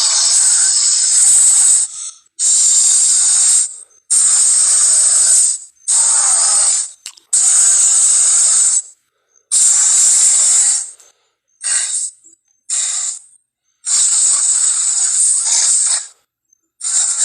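Film monster sound effect: about ten separate breathy, hiss-like blasts, each one to two seconds long, stopping dead between them, with no low rumble and no clear pitch.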